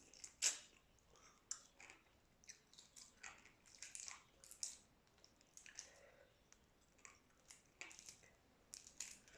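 Faint, close-up mouth sounds of a person eating boiled shrimp and rice: soft chewing with irregular wet clicks and smacks, the loudest about half a second in.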